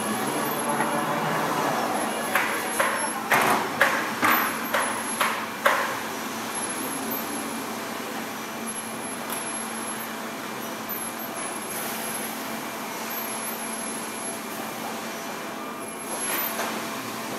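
Steady factory-floor machinery noise with a constant low hum. Between about two and six seconds in, a quick run of about seven sharp bangs or bursts, roughly two a second, stands out above it.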